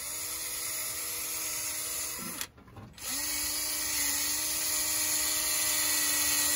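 Cordless drill spinning a wire wheel against the Ford 300 inline-six's cast-iron block, scrubbing the manifold mounting surface clean. It runs with a steady whine, stops briefly about two seconds in, then starts again and runs on.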